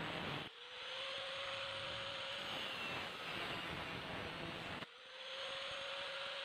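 Power tool motor running steadily with a hiss and a faint whine, dipping briefly twice.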